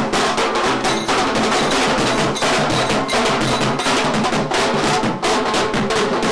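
Wedding-procession band drums (band baaja) beaten in a fast, dense rhythm, a large marching drum struck with a stick among them, with other band music over the beat.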